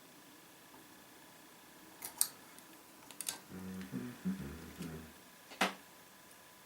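Sharp metallic clicks and clinks of lock picks being handled and worked against a padlock: a few separate clicks, the loudest one near the end, with a brief low sound in the middle.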